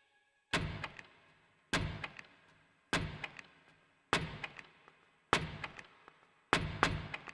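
Sparse electronic drum-machine hits from an analog Arturia DrumBrute Impact: one strong hit with a low thump and a short noisy decay about every 1.2 seconds, with softer ticks between them and a quick double hit near the end.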